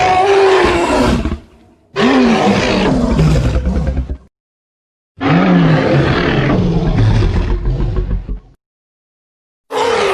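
Jurassic Park Tyrannosaurus rex roar sound effect: three separate roars, the first short and the next two about two to three seconds long, each with a wavering pitch over a deep rumble and divided by silence. A fourth roar starts just before the end.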